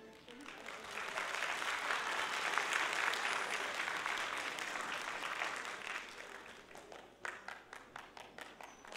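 Audience applauding after the music ends. The clapping swells over the first couple of seconds, then thins out to scattered single claps near the end.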